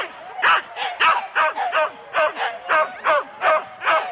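Harnessed Siberian huskies barking and yipping rapidly and without pause, about three high, yelping barks a second: sled dogs excited and straining at the start line of a race.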